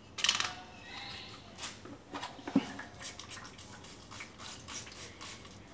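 Hand trigger spray bottle squirting liquid in short hissing sprays: one near the start, then a quick run of them, about three a second, through the second half. A light knock comes a little past halfway.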